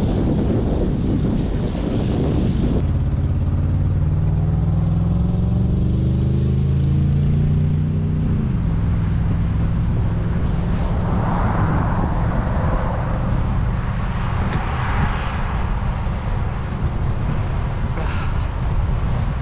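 Wind rumbling on the microphone, with a motor vehicle's engine rising slowly in pitch for several seconds as it speeds up. The engine then drops back a little to a steady drone, followed by the rush of traffic.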